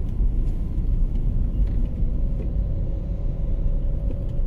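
Steady low rumble of a car being driven on the road, heard from inside the cabin, with wind buffeting the microphone.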